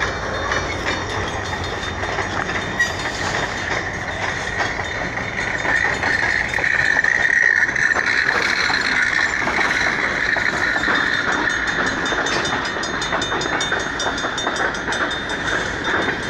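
Canadian National freight train's open-top hopper and gondola cars rolling steadily past a grade crossing, wheels rumbling and clacking over the rails. A high-pitched whine swells for a few seconds in the middle.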